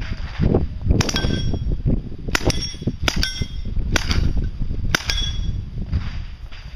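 Full-size 9mm Uzi submachine gun fired in about five short bursts of one or two shots, each burst followed by the ring of bullets striking steel plate targets.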